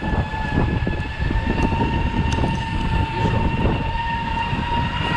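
Electric sail-furling motor on an Amel 55 yacht whining steadily as it rolls in sail to reef for a squall, its pitch creeping slightly upward, over heavy wind rumble on the microphone.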